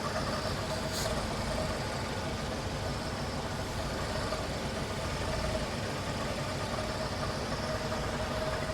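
Seat Arosa's engine idling steadily just after starting, running on its freshly cleaned and reinstalled fuel injectors. A short high tick about a second in.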